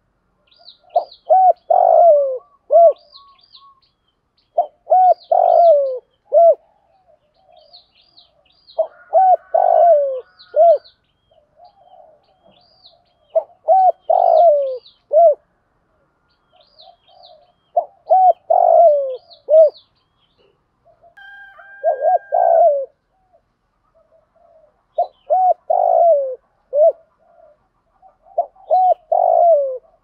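Spotted dove cooing. A phrase of several short coos ending in a falling note comes about every four seconds, eight times in all.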